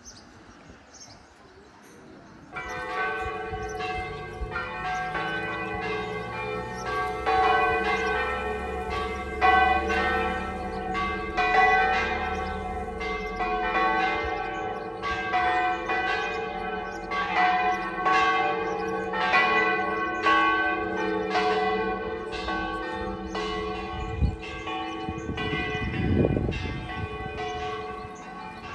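Church bells ringing a peal, starting a couple of seconds in: several bells struck in quick succession, about two strikes a second, each ringing on as the next sounds.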